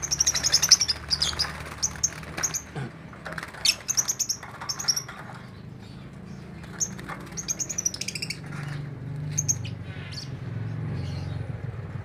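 A flock of caged lovebirds chattering: clusters of short, shrill chirps, loudest in the first second and again around four seconds in, over a steady low hum.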